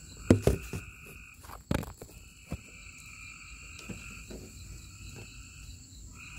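Frogs calling in long, steady trills that carry on for seconds at a time with brief breaks. A few sharp knocks in the first two seconds.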